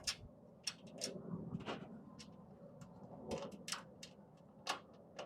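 Scattered light metallic clicks and taps, about seven, spread irregularly through the few seconds, as a screw is fitted into a steel bracket joining two steel cabinet panels.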